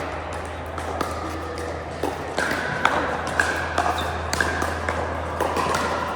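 Pickleball paddles striking the hard plastic ball: a series of sharp pops, each with a brief ringing tone, coming about every half second from about two seconds in. A steady low hum runs underneath.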